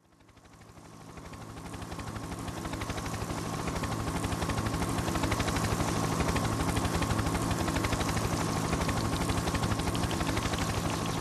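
Intro soundtrack: a fast, even pulsing rhythm over steady low tones and a high held tone, fading in from silence over the first few seconds.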